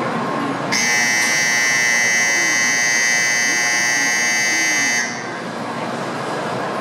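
Shinkansen door-closing warning buzzer sounding one steady buzz of about four seconds, which signals that the doors are closing for departure. The buzz is heard over the steady hum of a train standing at the platform.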